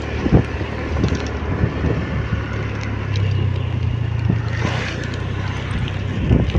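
Motorcycle engine running at a steady pace while riding, with wind noise on the microphone.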